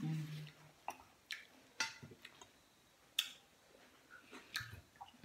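Eating sounds at the table: a short closed-mouth hum, then scattered faint crisp clicks and smacks of chewing.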